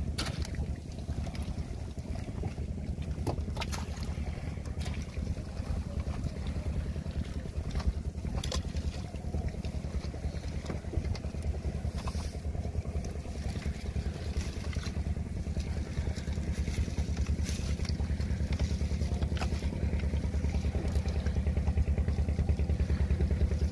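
A boat engine running steadily, a low pulsing drone, with a few scattered clicks and rustles from hands sorting wet fish, prawns and water plants in a plastic crate.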